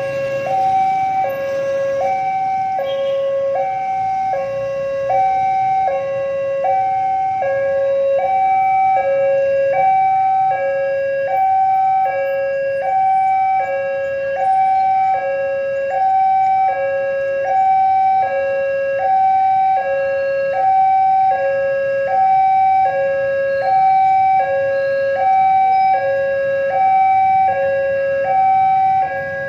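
Railway level-crossing warning alarm sounding a steady two-tone signal, high and low tones alternating about every half second, warning that a train is approaching.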